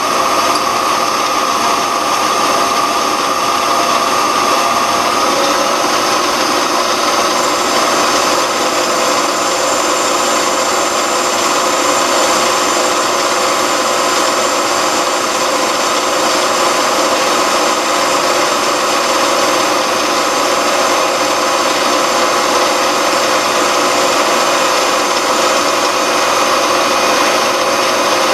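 Small metal lathe running steadily, its motor and gears giving a continuous machine hum with several held tones, while a cutoff tool is hand-fed into the spinning workpiece.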